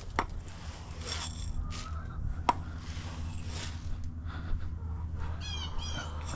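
Two short bird calls in quick succession about five and a half seconds in, with a couple of sharp knocks earlier, over a steady low hum.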